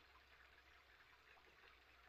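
Near silence: faint ambient background.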